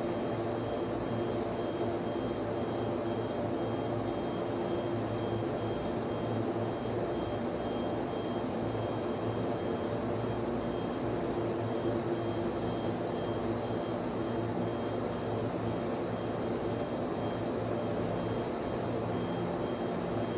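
Steady drone of cooling fans in server and network switch equipment, with several constant hums layered under a rushing whoosh and a faint high-pitched whine that flickers on and off.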